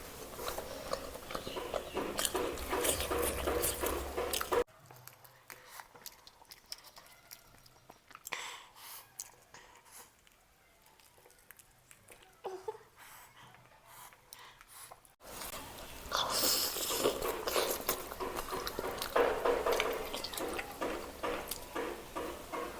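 Close-miked eating sounds: chewing and biting with small wet clicks and crackles. A quieter stretch of faint clicks in the middle starts and stops abruptly.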